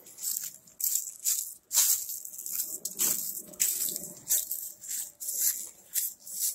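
Footsteps crunching through dry fallen leaves at a walking pace, about two crunches a second.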